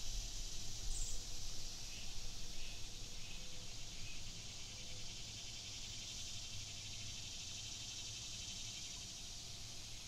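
Mountain stream running: a steady rush of water, with a low rumble that is uneven for the first couple of seconds, then settles.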